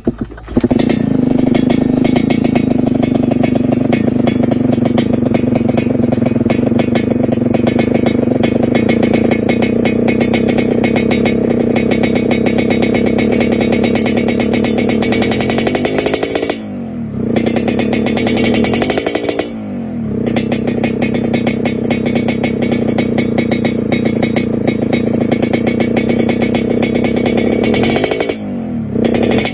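Yamaha RX-King's two-stroke single-cylinder engine running steadily at a raised speed, with the rough 'ngorok' (snoring) note. Its revs drop and pick up again a few times in the second half.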